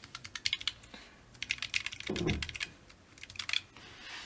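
Typing on a Corne-ish Zen low-profile split keyboard fitted with Sunset tactile switches: several short runs of quick keystrokes with brief pauses between them, and a brief low sound about two seconds in.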